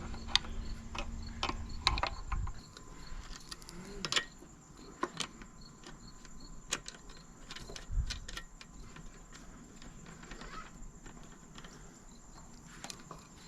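Irregular metallic clicks and knocks of hand tools working on the hydraulic hose fittings of a mini excavator's thumb. A low steady hum stops about two and a half seconds in, and insects chirp faintly in the background.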